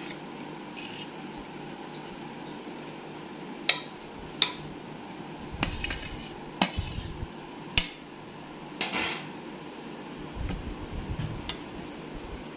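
Stainless-steel spoon and plate clinking and scraping against a steel pot as parboiled rice is spooned off the plate, with a few sharp clinks and short scrapes in the middle.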